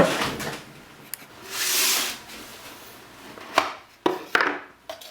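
A product and its packaging being handled: a long sliding rub about a second and a half in, then a few short knocks and taps.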